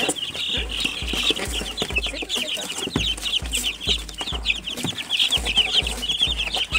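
A brood of young incubator-hatched chicks peeping all together, a dense stream of many short, high chirps overlapping without a break.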